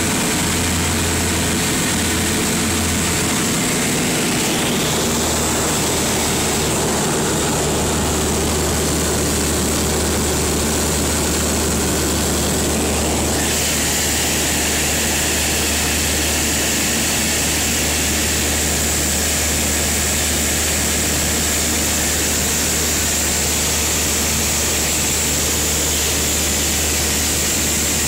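Cabin noise of a Beechcraft Duchess in flight: the steady drone of its twin piston engines and propellers, heard from inside the cockpit. The tone shifts slightly about halfway through.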